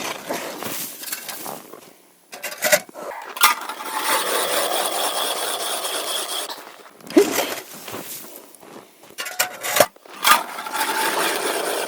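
Ice auger boring a hole through river ice: stretches of rough grinding and scraping as the blades cut, broken by short pauses and a few sharp knocks.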